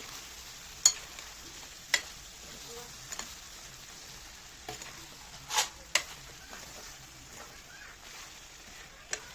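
Chicken gravy sizzling as it fries in a pan and is stirred, with a spoon knocking sharply against the pan several times.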